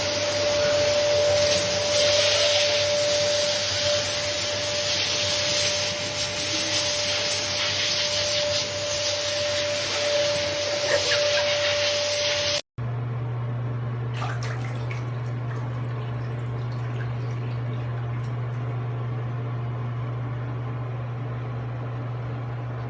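Water running into a bath from a tap or shower: a steady rush with a faint steady tone in it. It cuts off abruptly a little past halfway, leaving a steady low hum with a few faint clicks.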